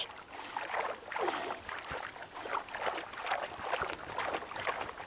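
Water splashing and sloshing irregularly as a red deer stag moves in a shallow puddle.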